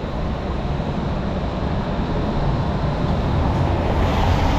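Steady city street noise from traffic, with a city tram running along its rails beside the pavement.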